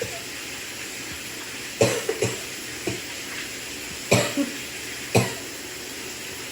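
A person coughing in the shower: a quick cluster of coughs about two seconds in, a weaker one near three seconds, then two more single coughs at about four and five seconds. The shower water gives a steady hiss underneath.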